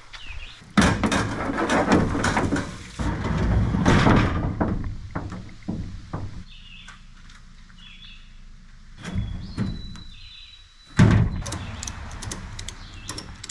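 A canoe being flipped over on a wooden-decked trailer. It lands with one loud thunk about eleven seconds in, after several seconds of rustling and knocking.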